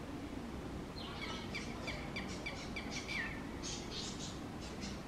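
Red-wattled lapwing calling: a quick run of sharp, high notes, about five a second, ending in a longer falling note, then a few more notes shortly after.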